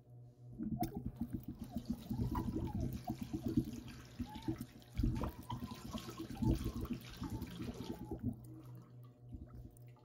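Water running from a bathroom tap into a ceramic sink and splashing over hands being washed. The flow starts just under a second in and dies away near the end.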